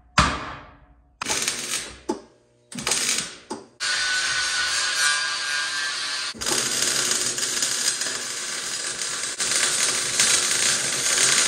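Metalwork on an aluminum boat hull: a few short, sharp bursts that ring out in the first four seconds, then an angle grinder running with a steady whine, and from about six seconds in the steady crackling hiss of an electric welding arc.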